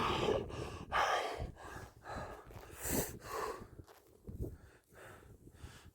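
A person breathing hard in short, noisy breaths, about one a second, growing fainter toward the end.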